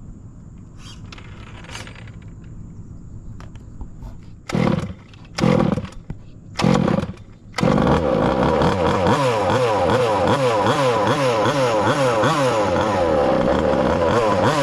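Small two-stroke gas engine (Taylor RC 35cc) of a 1/5 scale RC car being started: three short bursts of cranking and firing, then it catches and runs loudly, its pitch rising and falling over and over.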